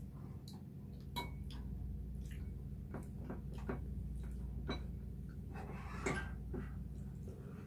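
Scattered light clicks and taps of chopsticks, a spoon and a fork against plates and bowls, at irregular moments, over a low steady hum.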